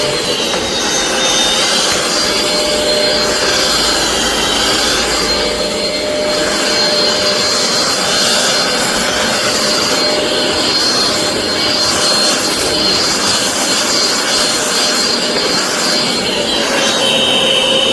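Rowenta XPert 6.60 cordless stick vacuum running, a loud, steady motor whine with a high whistle. The pitch sags briefly a few times and drops lower near the end.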